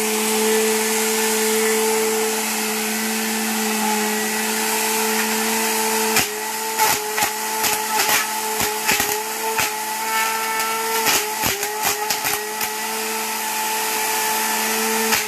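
An RS 550 DC motor spinning at high speed on a bench power supply, run as a small suction fan, with a steady high whine. In the second half its whine is broken many times by sharp clicks, each with a brief dip in pitch that then recovers.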